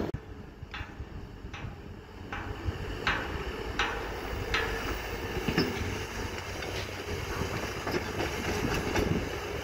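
Kobelco crawler excavator working, its engine running with a steady rumble under a regular series of sharp clicks, a little more than one a second.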